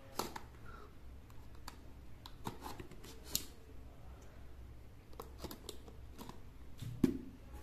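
Fingers picking and prying at the sealed flap of a cardboard product box: scattered small clicks and scrapes of card and seal tape, with a sharper click about three seconds in and another knock near the end.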